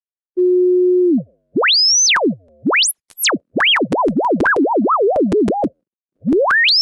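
A single pure sine tone from an online tone generator, its pitch dragged around. A steady low hum gives way to sweeps up to a piercing high squeal and back down, then a fast up-and-down warble of about three swings a second, with clicks at the jumps. After a short break it rises high again.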